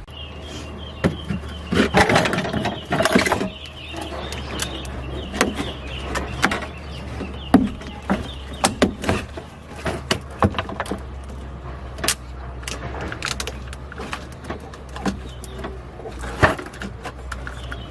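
Restoration work noise: irregular knocks and clicks of tools and parts being handled, thickest in a cluster about two to three seconds in, over a steady low hum.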